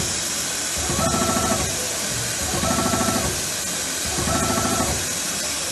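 Automatic industrial sewing machine stitching in short, rapid runs that repeat about every second and a half, over a steady hiss of compressed air.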